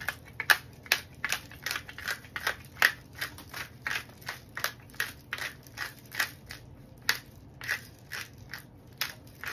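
Hand-twisted pepper grinder cracking peppercorns in a steady run of crunchy clicks, about two or three a second.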